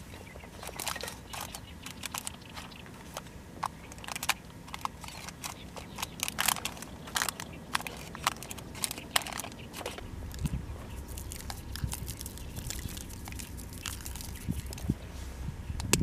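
Chopsticks placing potato pieces into a parchment-lined square mini dutch oven: scattered clicks, taps and paper crinkles. A low rumble joins about ten seconds in.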